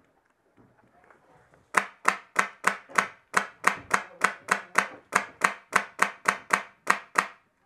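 Airsoft rifle firing semi-automatic: a string of about twenty sharp shots at roughly three a second, starting a little under two seconds in.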